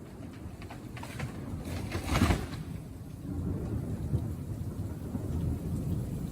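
Thunderstorm: a low rumble of thunder over steady rain noise, with a louder crack-like burst about two seconds in.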